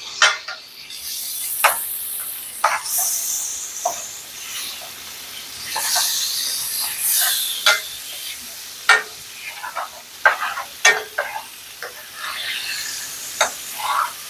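Steak bites sizzling in a frying pan with butter and Worcestershire sauce, while a utensil stirs them, tapping and scraping against the pan many times.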